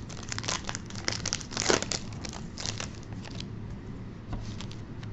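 Trading card pack wrapper crinkling and tearing as it is pulled open by hand: a quick run of sharp crackles, loudest about two seconds in, thinning out after about three and a half seconds.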